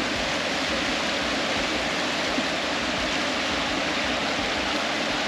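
Rain-swollen river water rushing and churning over flat rocks close to the microphone: a steady, loud rush of rapids.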